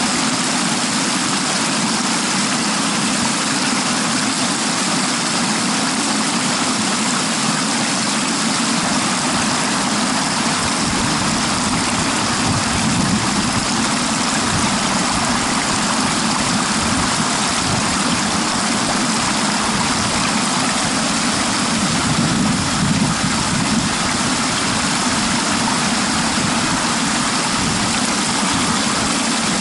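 A steady, even rushing noise with no clear engine tone and no separate events, holding one level throughout.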